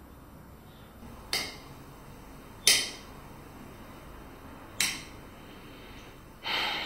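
Four sharp clicks from a small hard object, spaced irregularly a second or two apart, the last one longer.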